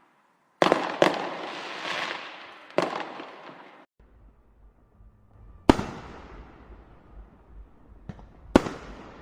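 Fireworks going off. Two sharp bangs set off a dense rush of crackle lasting about three seconds, with another bang inside it. After a short gap, single loud bangs ring out and fade slowly, one about halfway through and another near the end, over a low rumble.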